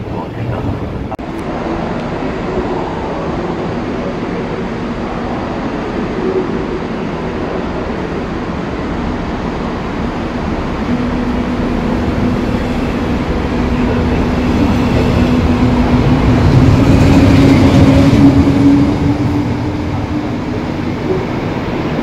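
A train moving in a station: a steady rumble with a hum that creeps up in pitch as it grows louder, loudest about three-quarters of the way through, then easing back.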